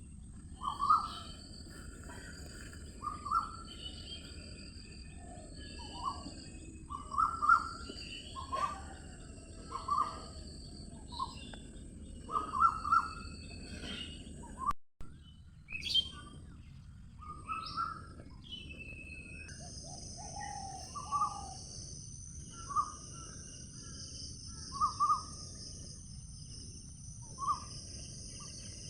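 Birds chirping in short calls every second or two over a steady high insect drone. The sound drops out for an instant about halfway through.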